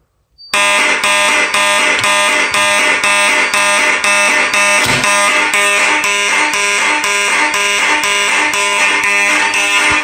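Mechanical vibrating fire alarm horns (Federal Signal Vibratone type) sounding on march time: a loud, rasping buzz pulsed about twice a second. It starts about half a second in, once the pull station has been pulled.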